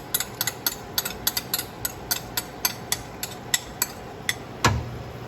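Pork crackling and popping in a hot pan with the seasonings just added, sharp irregular pops a few times a second over a low hiss. One heavier knock near the end.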